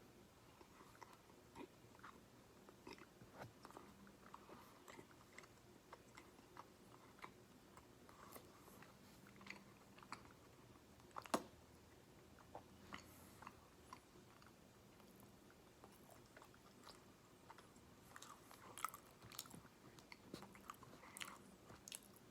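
A person chewing fried chicken close to the microphone: faint, irregular wet mouth clicks and smacks, with one much louder sharp click about halfway through.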